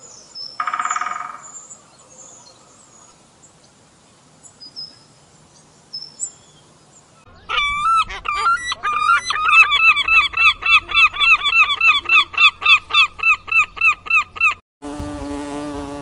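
Toucan calling: a loud nasal call repeated about two to three times a second for about seven seconds, after a brief single call about a second in and a few faint chirps. Near the end a bumblebee's low steady buzz starts.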